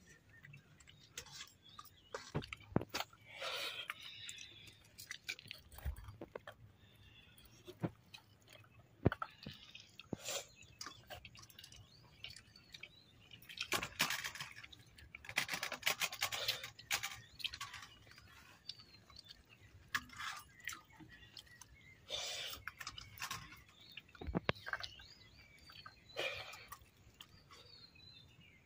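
A person chewing and eating pork curry at close range: irregular mouth clicks and short bouts of chewing noise.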